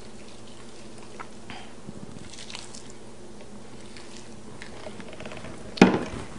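Thick salad dressing poured from a blender jar onto salad in a stainless steel bowl, a soft wet pattering over a steady low hum. Near the end the jar is set down on the counter with a sharp knock.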